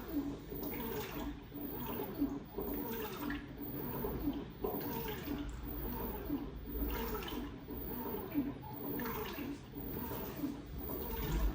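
LG WT16WV6 washing machine draining its rinse water: the drain pump pulls water out with a steady rushing and repeated gurgling.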